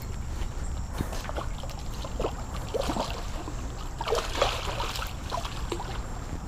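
Water splashing and sloshing in a shallow creek as a hooked carp thrashes near the bank, heaviest about four to five seconds in, over a steady low rumble.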